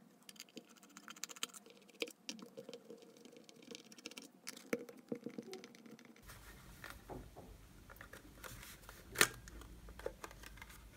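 Faint scattered clicks and rubbing of hands handling the plastic case of an Owon B35T multimeter as it is opened up, with one sharper click about nine seconds in.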